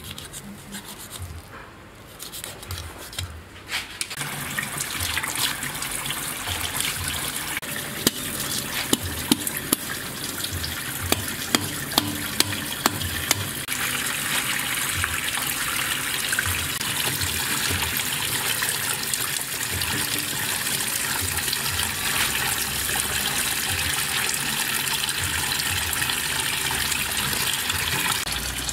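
Tap water pouring in a steady stream into a stainless steel sink, starting about four seconds in. A run of about eight sharp knocks comes through it about a third of the way in.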